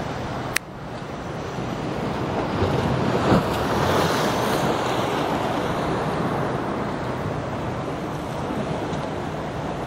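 Sea waves washing against a concrete breakwater, with wind on the microphone; the surf swells about three seconds in. A short click comes just under a second in.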